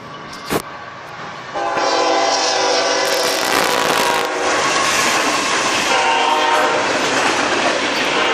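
Diesel freight locomotive's horn sounding as the train passes close by. A long blast starts about a second and a half in, then a short blast comes about six seconds in, over the steady rumble and clatter of the locomotive and cars going by. A brief knock comes just after the start.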